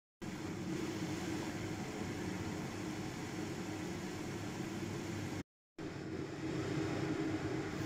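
Steady mechanical hum with an even hiss, like a running kitchen fan, cutting out completely twice for a fraction of a second.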